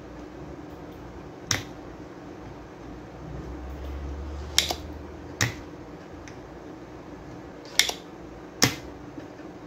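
Spring-loaded desoldering pump snapping five times, sharp single clicks a second or more apart, as it sucks solder off the pins of a TDA2050 amplifier chip to free it from the board.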